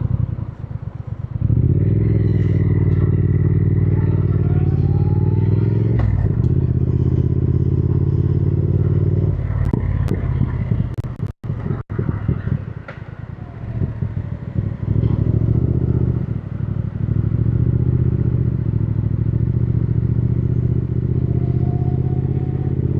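Triumph Thruxton R's 1200 cc parallel-twin engine running under throttle, with a brief break about six seconds in. It eases off to a quieter rumble about nine seconds in, then pulls steadily again from about fifteen seconds.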